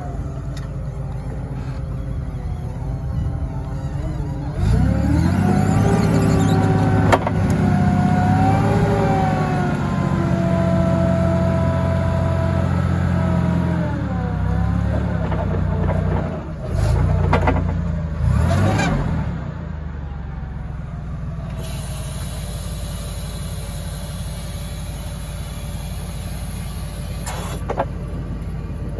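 Propane-fuelled Hyster 15,000 lb forklift engine idling, then revving up about five seconds in with a held hydraulic whine as the mast raises the forks high. The revs drop back after about ten seconds, rise briefly once more, and then settle to idle while the forks are lowered.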